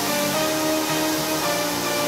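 Electronic background music with a melody of held notes.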